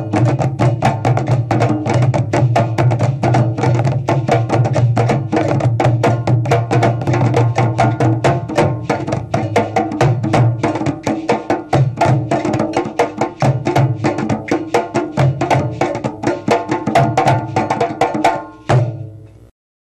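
African drums played in a fast, dense rhythm of hand strokes over a deep resonant drum tone, stopping on a final hit near the end.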